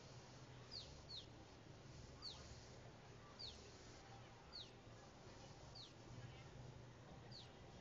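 Faint, short high chirps falling in pitch, seven of them, about one a second, over a low steady hum.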